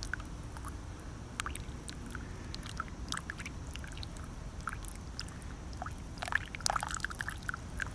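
Hot water dribbled a little at a time from a kettle onto coffee grounds in a paper filter: scattered light patters and trickles, a little denser near the end, over a low steady rumble.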